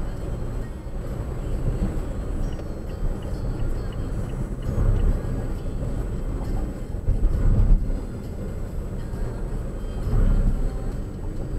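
Road and engine noise of a moving car heard from inside the cabin through a dashcam's microphone: a steady low rumble that swells briefly three times, with a faint steady high whine above it.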